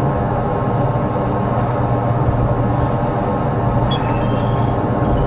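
Tram running along street track, heard from inside the driver's cab: a steady low hum over rolling wheel-on-rail noise, with a few faint short high squeals about four seconds in.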